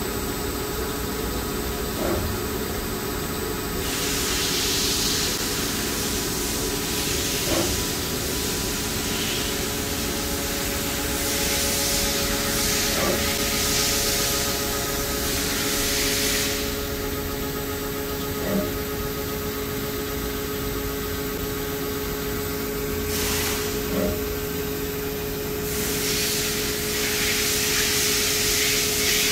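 Summit Smartcut CNC combination lathe running a facing cycle in automatic mode: a steady machine hum with several held tones. Loud hiss comes and goes over it, about four seconds in, again from about eleven to sixteen seconds, and from about twenty-six seconds on, with a faint tick roughly every five and a half seconds.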